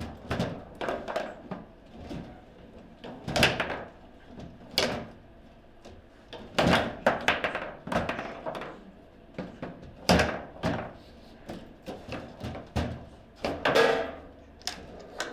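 Foosball in play: the ball knocked about by plastic players on steel rods, an irregular run of sharp clacks and taps, with several loud cracks of hard shots striking the table.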